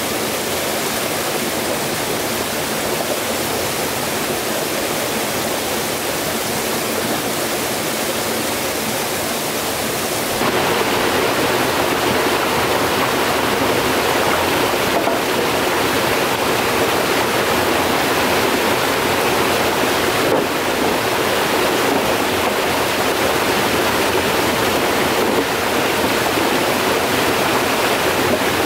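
Stream water running, a steady rush that becomes abruptly louder about ten seconds in.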